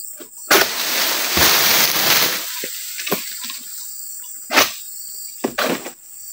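An egrek, a sickle blade on a long pole, working in an oil palm's crown: about two seconds of loud rustling and scraping through the fronds, then a few short, sharp cutting strokes. Crickets or cicadas buzz steadily in the background.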